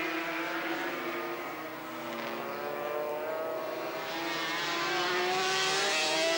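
Two-stroke 500cc Grand Prix racing motorcycle engines at high revs, their pitch rising and falling with throttle and gear changes. They grow louder near the end.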